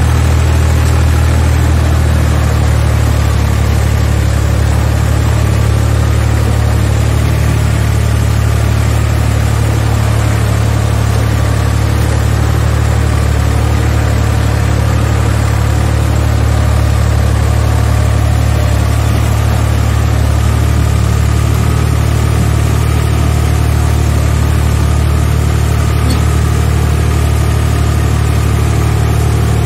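Tractor engine running steadily at an even speed, with no change in pitch.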